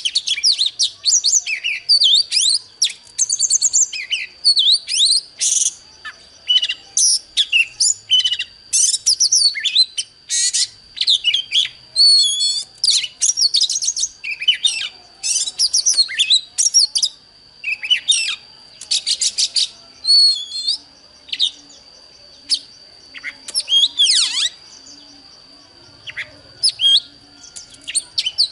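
Oriental magpie-robin singing: phrase after phrase of varied whistles, quick trills and buzzy chatter with short gaps. A thin, steady high tone sounds behind the song from about five seconds in.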